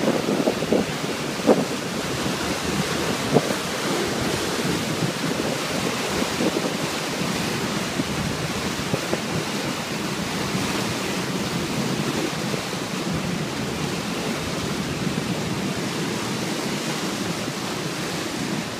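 Steady rush of wind buffeting the microphone over churning water, from the deck of a river car ferry under way. Two sharp knocks come about one and a half and three and a half seconds in.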